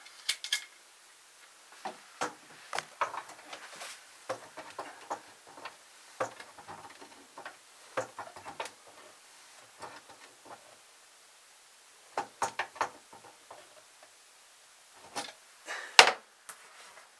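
Scattered light clicks and knocks of tongue-and-groove pliers being worked on a sink's plastic drain pipe and of a wooden cabinet door being handled, with one louder knock near the end.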